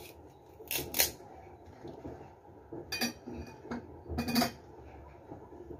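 Kitchen clatter: a knife and dishes knocking on a counter, a few sharp clinks and clacks, the loudest about a second in and again past the four-second mark.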